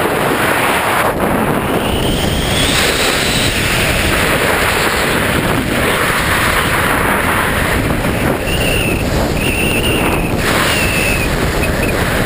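Wind rushing over the GoPro's microphone during a tandem descent under an open parachute: a steady, loud rush of wind noise, with a few short high whistling tones in the second half.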